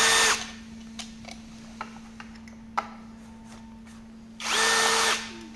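Cordless drill-driver backing out the screws of a hoverboard's battery clip. One run winds down just after the start, and a second short run of under a second comes near the end, its pitch climbing as it spins up and dropping as it stops. Small handling clicks come in between.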